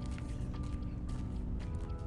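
Calm background music with held notes and light clicks, over a recorded bed of bird calls.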